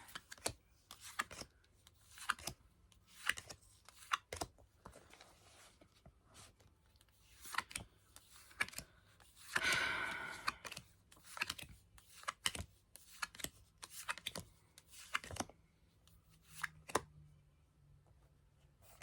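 Yu-Gi-Oh trading cards being handled and sorted one by one, with a string of sharp card clicks and flicks and a longer rustle about ten seconds in.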